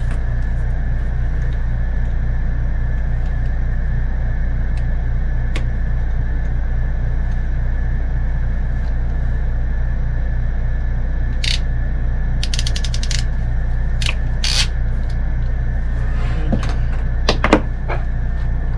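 Hand tools and fittings being handled during PEX plumbing work: scattered clicks and knocks, with a quick run of rapid clicks about halfway through and a sharper knock near the end, over a steady low hum.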